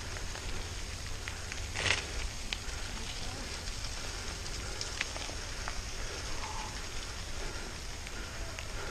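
Mountain bike tyres rolling over a loose gravel road on a descent, with irregular crackling and popping of small stones under the tread and wind rumbling on the microphone. A louder crunch comes about two seconds in.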